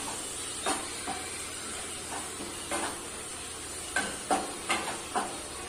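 Leafy greens and green chillies frying in oil in a non-stick pan: a steady soft sizzle, with short irregular scrapes and taps as they are stirred, coming more often in the last two seconds.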